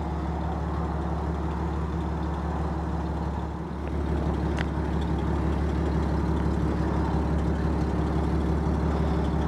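Dodge M37 truck's engine running steadily at low speed as the truck creeps forward, a little louder from about four seconds in.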